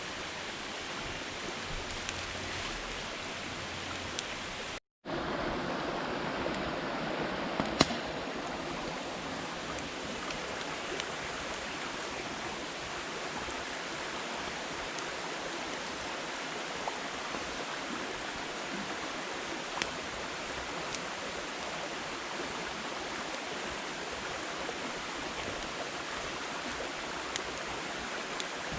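Firewood burning in a campfire: a steady hiss with scattered crackles and pops, one louder pop about eight seconds in. The sound drops out completely for a moment about five seconds in.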